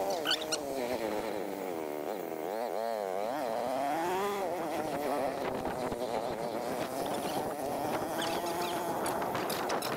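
Vehicle engine running under load, its buzzing pitch rising and falling as the revs change, swinging most in the middle of the stretch.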